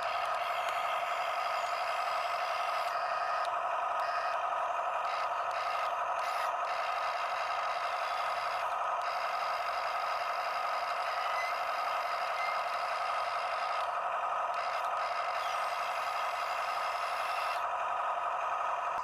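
Huina 1573 RC excavator's electric motors and gearboxes whining steadily, with higher rattling and scraping noise that cuts out and returns several times.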